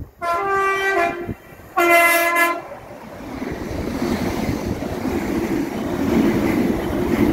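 Great Western Railway Class 800 IET sounding its horn twice as it approaches, a blast of about a second and then a shorter one. The train then passes close by at speed, a rumble and clatter of wheels on rail that grows louder.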